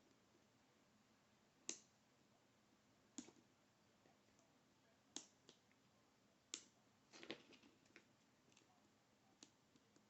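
Faint, scattered metallic clicks from handling a Schlage Everest lock cylinder and its tools. There are about nine separate ticks spread irregularly, with a short cluster a little past the middle.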